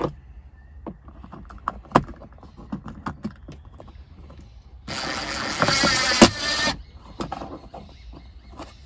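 AEG cordless drill driving a mounting screw into a plastic trim panel in one run of about two seconds, starting about five seconds in, with a steady high whine over the motor. It comes after a few scattered clicks and knocks of handling.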